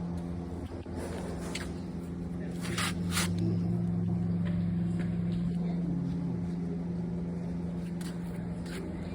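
Window air conditioner running with a steady, low electrical hum, with a few sharp clicks about three seconds in.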